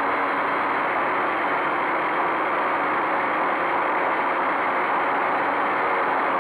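Quadcopter's electric motors and propellers buzzing steadily in flight, heard close up through the onboard camera's microphone, with a faint hum that wavers slightly in pitch.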